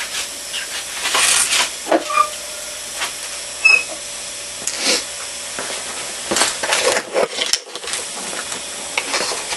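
Rustling and scraping of a 2x72 abrasive sanding belt being slipped off the belt grinder's wheels and handled, with scattered knocks and a sharp click a little under four seconds in.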